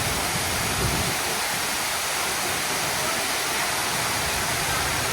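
Water cascading down a tall semi-circular fountain wall into its pool, a steady, even rush of falling water.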